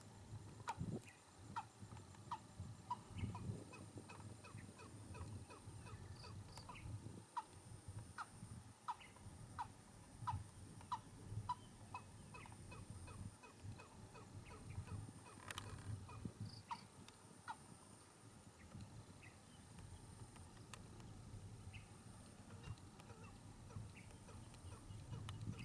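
Watercock calling: a long run of short, hollow, faint notes, about one to two a second.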